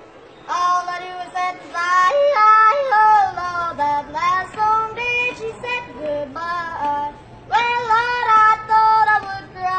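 A man singing into a handheld microphone in a high, thin voice, in short phrases with brief breaks between them.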